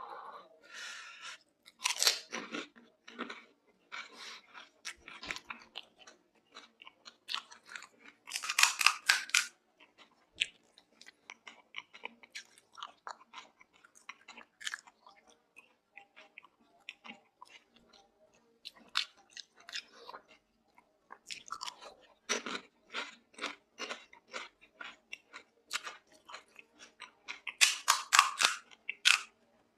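Close-miked eating of pani puri: crisp hollow puri shells crunched and chewed with wet mouth sounds. There are louder bursts of crunching about 2, 9, 22 and 28 seconds in, with quieter chewing between them.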